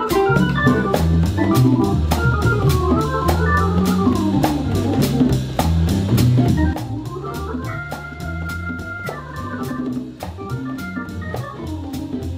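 Instrumental background music with held organ-like keyboard chords, a bass line and a steady drum beat; it gets quieter about seven seconds in.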